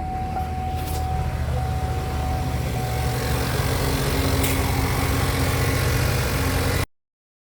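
2013 Chevy Malibu engine idling steadily, freshly started after an alternator replacement. A steady high tone over the idle stops about three seconds in, and the sound cuts off abruptly shortly before the end.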